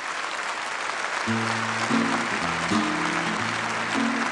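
Audience applause, and about a second in an acoustic guitar begins playing chords under it, the introduction to a song.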